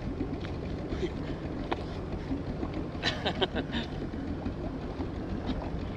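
Steady wind rumble on the microphone and sea noise around a small inflatable boat, with a few faint clicks and a short run of rapid clicking about three seconds in.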